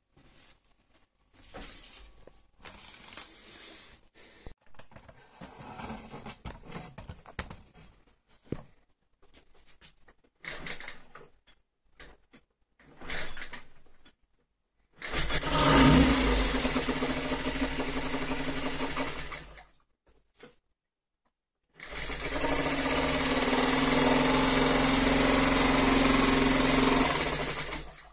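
Parsun 2.6 four-stroke outboard motor test-run with its lower unit in a bucket: it runs steadily for about five seconds and stops, then runs again for about five seconds and cuts off near the end. Before that come scattered knocks and clatter from handling the motor.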